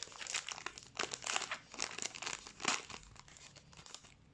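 Crinkling and tearing of a trading card pack's wrapper as it is ripped open and handled. The crackling is dense at first and dies down about three seconds in.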